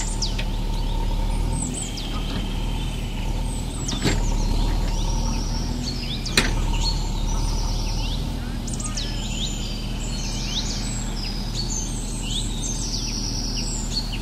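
Small birds chirping and trilling over and over, over the steady low hum of a running engine. Two sharp clicks, about four and about six seconds in.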